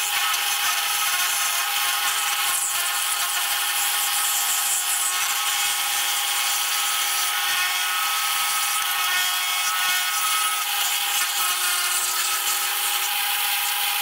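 Harbor Freight drill press spinning a small carving bit that grinds out the bowl of a wooden spoon blank: a steady motor whine with the rasp of the bit cutting into the wood.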